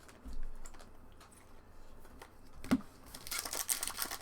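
A few light clicks and a sharp tap, then, about three seconds in, the wrapper of a trading card pack crinkling as it is torn open and handled.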